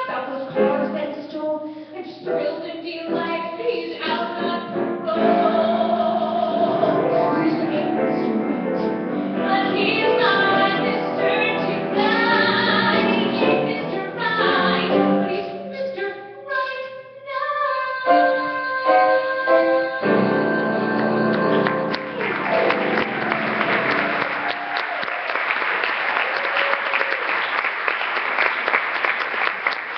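Live singing with instrumental accompaniment, recorded through a phone's microphone. The song ends about two-thirds of the way through and the audience breaks into applause.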